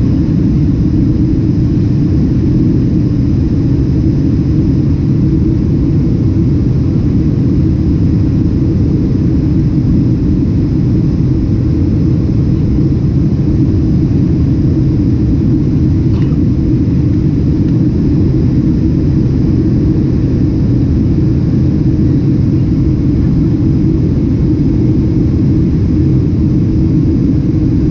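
Steady low roar of a Boeing 767's engines and airflow heard from inside the passenger cabin at high power.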